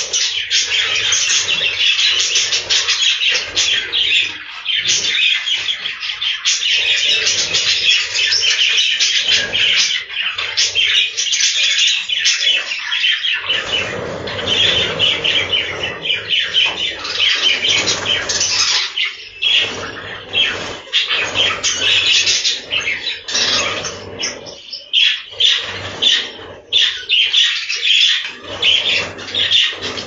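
A flock of budgerigars chattering and chirping continuously in a dense, overlapping warble, with wings fluttering now and then as birds fly between perches.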